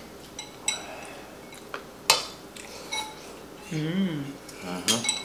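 Eating utensils (chopsticks, spoon and ladle) clinking against ceramic bowls and a stainless steel hot pot: a string of short, ringing clinks, the loudest about two seconds in. A short hummed "mm" comes about four seconds in.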